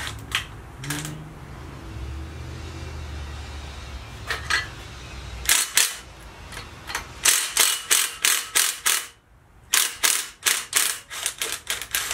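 Sharp metal clicks, a few at first and then a quick run of about three a second, broken by a short pause near the end: tools and a valve spring compressor being worked on a Hemi V8 cylinder head while the valve springs, retainers and keepers go back in.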